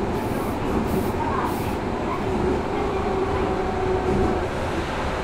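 Osaka Municipal Subway 66 series train running between stations, heard from inside the car: a steady rumble of wheels on rail and running gear, with a faint steady tone underneath.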